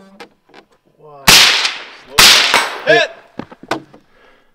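Two rifle shots from a lightweight titanium and carbon-fiber AR-15, about a second apart, each fading out over about half a second.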